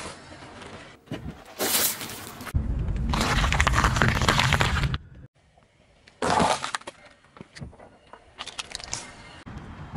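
Car tyres rolling slowly over objects on asphalt and crushing them, among them cucumbers, in several separate bursts of crunching and cracking. A longer crush lasts about two and a half seconds in the middle, and a run of sharp cracks comes near the end.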